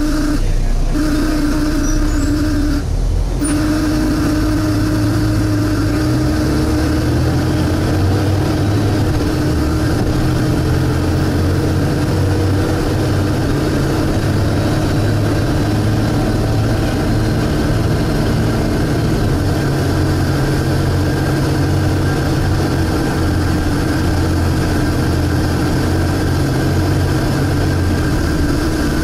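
Volvo B7TL double-decker bus's six-cylinder diesel engine running under way, heard from inside the bus. A steady droning suction noise sits over the engine note throughout, and the engine note shifts and grows stronger about six seconds in.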